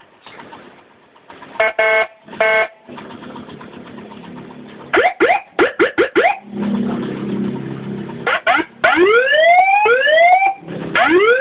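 Custom-made multi-tone motorcycle siren sounding through a horn loudspeaker, switching between its tones. First come two short steady beeps, then a fast run of quick rising chirps and a brief low drone, then repeated rising whoops, each sweeping up over about a second.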